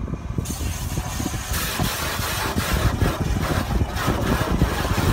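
Car wash water spray hissing against the car's windshield and body, heard from inside the cabin over a steady low rumble. The spray comes in about half a second in and gets louder about a second and a half in.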